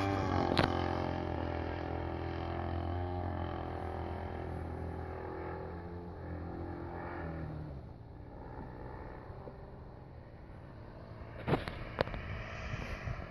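ZDZ 60cc single-cylinder two-stroke gas engine of a giant-scale RC Edge 540 running steadily in flight, then throttled back about seven and a half seconds in to a weaker, rougher low-throttle run. Two sharp clicks near the end.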